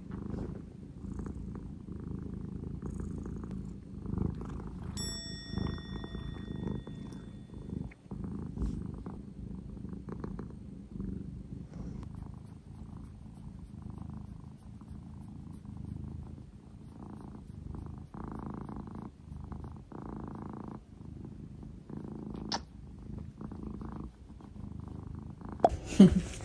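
British Shorthair cat purring steadily in a continuous low rumble. A brief ringing tone sounds about five seconds in, and a loud knock comes near the end.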